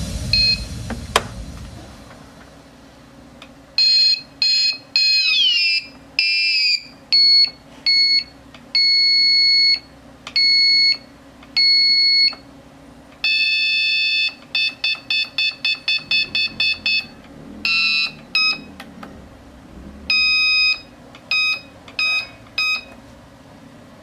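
Electronic buzzer driven by an NE555 timer circuit beeping in short and long tones, its pitch changing from beep to beep, with one beep sliding down in pitch about five seconds in and a quick run of short beeps near the middle.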